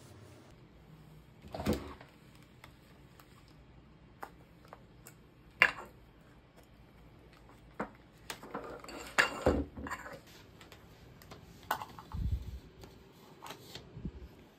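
Scattered clicks and knocks of a Canon SLR camera being picked up and handled on a desk, with one sharp click about five and a half seconds in and a low thud near the end.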